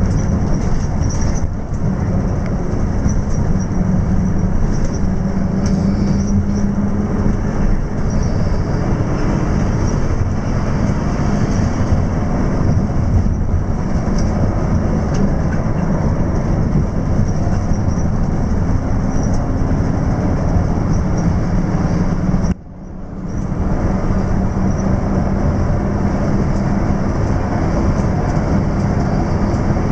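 Steady engine drone and road rumble inside the cabin of an intercity coach bus driving at speed, with a low hum. About three-quarters of the way through it dips sharply for about a second, then comes back.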